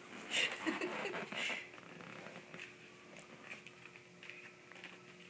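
Ferret rooting in a plastic tub of snow: a burst of scratching and rustling in the first second and a half, then fainter rustles.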